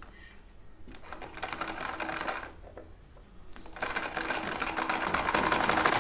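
Black domestic sewing machine stitching cotton fabric with a rapid, even needle clatter. It starts about a second in, stops briefly midway, then resumes louder from about four seconds in.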